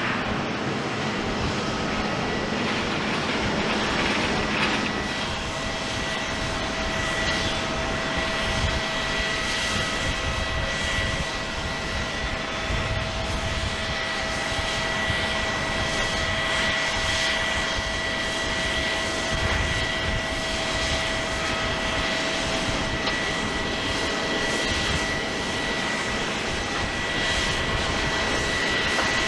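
Jet airliner engines running at a steady level, with a thin high whine throughout and a lower whine coming in about five seconds in. From then on it is a Delta Airbus A350-900, whose engines are Rolls-Royce Trent XWBs.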